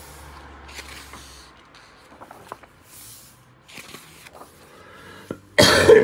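Pages of a large hardcover art book being handled and turned: faint paper rustles and small taps, then one loud paper flap as a page is flipped near the end.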